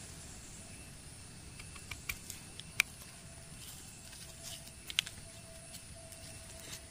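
A few faint, sharp clicks and light rustles as a knife trims and breaks open a red russula mushroom held in the hand, against a quiet low hiss.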